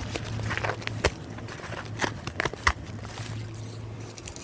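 Handling noise from a package being opened: scattered sharp clicks and light rustling of packaging, over a steady low electrical hum.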